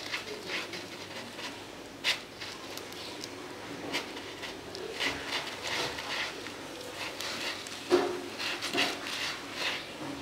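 Kittens scratching and digging in granular cat litter in plastic litter trays: irregular short scraping and rustling of the litter, with a few sharper clicks, the loudest near the end.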